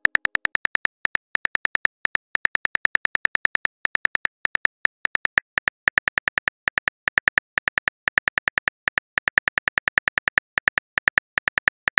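Simulated phone keyboard typing clicks from a texting-story app: a rapid run of short, identical taps, about five or six a second with brief pauses, one per letter as a message is typed out.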